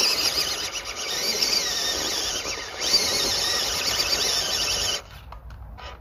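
A loud high-pitched mechanical whine, wavering up and down in pitch over a rushing noise, like a small electric motor and gears running at varying speed. It cuts off about five seconds in, leaving a few faint clicks.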